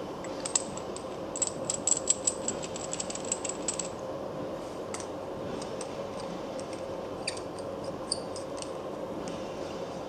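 Steel parts of an FD Grip A-type rebar coupler clicking and scraping in the hands as a threaded stud is screwed into its sleeves: a quick run of small metallic ticks in the first few seconds, thinning to scattered clicks later, over a steady background hum.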